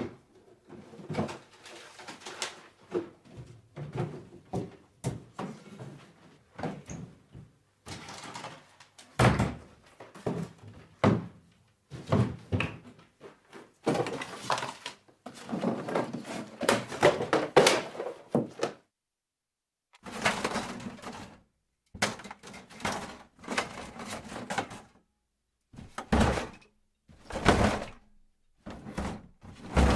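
Hands rummaging through a desk drawer of office stationery: small metal and plastic items clattering, rattling and knocking together in irregular bursts, with thunks against the drawer and a couple of short pauses.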